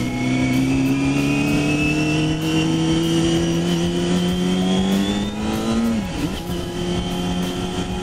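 Yamaha ZeaL's 250cc inline-four engine pulling in one gear, its pitch rising steadily for about six seconds, then dropping suddenly at a gear change and running steady at lower revs.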